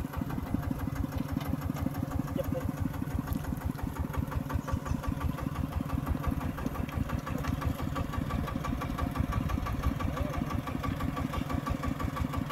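Kubota diesel engine running steadily at an even speed.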